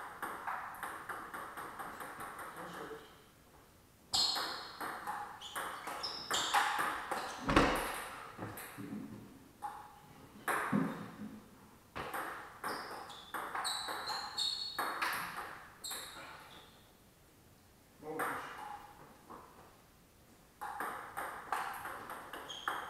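Table tennis ball being hit back and forth with paddles and bouncing on the table: rapid runs of sharp clicks in several rallies, broken by short pauses between points.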